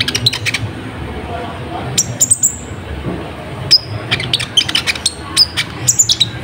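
Van Hasselt's sunbird (kolibri ninja) calling: sharp, high chips and fast ticking runs in clusters. There is a burst right at the start, another about two seconds in, and a longer run through the second half.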